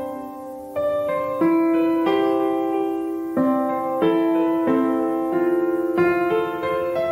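Background piano music: a slow, gentle melody of single notes, each struck and left to ring into the next.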